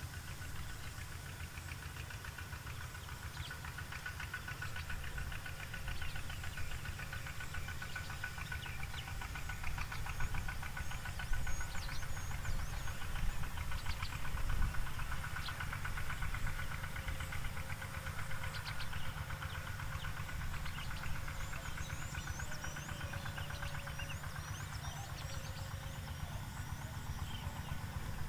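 Outdoor field ambience: a steady low rumble, with a continuous high tone and scattered ticks above it. A few short, high chirps come near the end.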